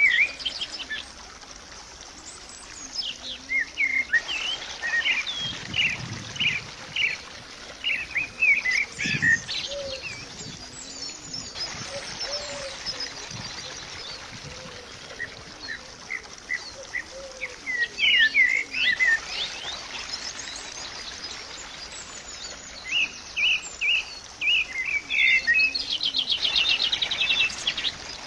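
Birds chirping and singing: clusters of short, quick calls with pauses between them, over a faint steady background hiss.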